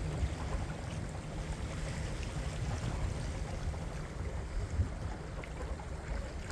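Wind buffeting the microphone in a steady low rumble, with water washing and lapping along the hull of a small sailboat under sail.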